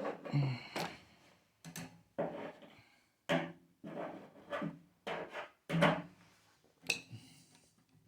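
Metal parts of a gas water heater's burner access cover being worked loose by hand: a string of irregular sharp knocks and scrapes, some ten in all.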